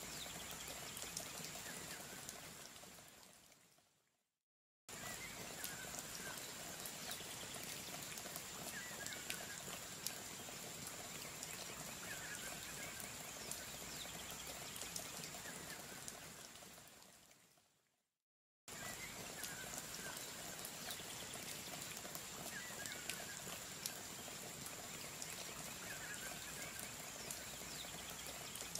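Soft, steady rain-like hiss with a short chirping call every couple of seconds, like a rain-and-frog nature track. It fades out to silence twice and starts again.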